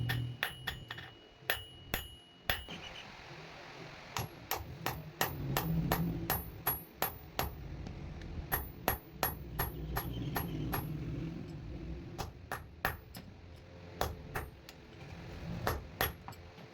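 Hammer blows on metal at an anvil, quick and irregular at about two to three a second, each a sharp clang. A ringing tone follows the blows in the first few seconds, and a low rumble runs underneath.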